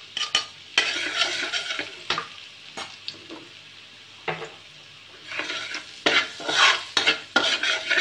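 Metal ladle scraping and stirring in a wide metal wok while chopped garlic sizzles in hot oil. The strokes come in runs, ease off in the middle, and pick up again near the end.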